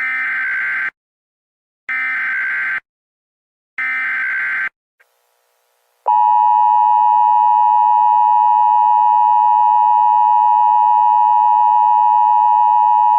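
Emergency Alert System opening: three short screeching data bursts of the SAME header, about two seconds apart. About six seconds in, a loud, steady two-note attention tone begins and holds.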